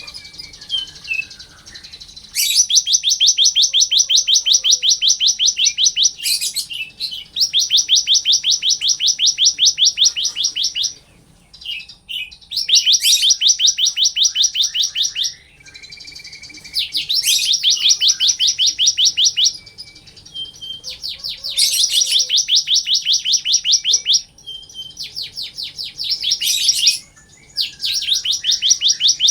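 Ciblek (bar-winged prinia) singing in full voice: long, fast trills of sharp, evenly repeated high notes, each lasting a few seconds, about seven times over, with short chirps in the gaps.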